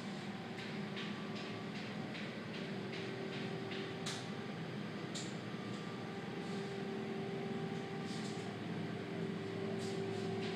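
Asphalt paver's engine running steadily, a low hum with several steady tones, heard through a window. A run of light ticks, about three a second, comes in the first few seconds, and a few sharper clicks follow later.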